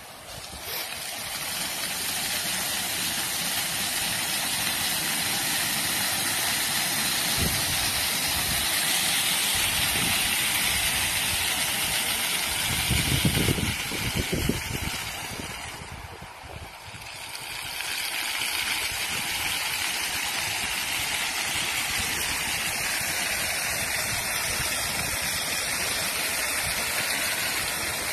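Water jets of a floor-level fountain spraying up from nozzles in stone paving and splashing back down: a steady rushing hiss. A louder low rumble comes about halfway through, and the rush drops away briefly a few seconds later.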